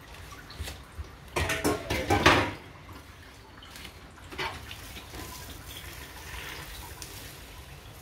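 Water from a kitchen tap splashing in the sink, loudest for about a second shortly after the start, then fainter, with light clinks of dishes.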